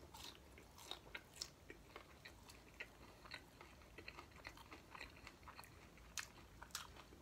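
A person chewing a mouthful of crunchy fried corn-tortilla taco shell with chicken and lettuce. It comes through as faint, scattered small crunches and crackles, many of them in quick succession.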